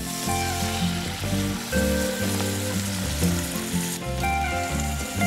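Raw pork cubes sizzling steadily on the hot base of a cast-iron Dutch oven as they are dropped in and turned with tongs, under background music with a bass line.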